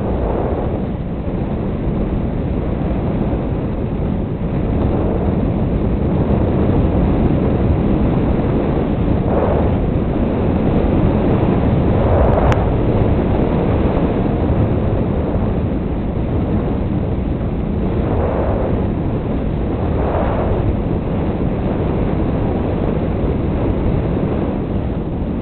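Steady airflow rush over the microphone of a camera riding on a fixed-wing RC plane in low flight, with a few brief swells of the rush and one short click about halfway through.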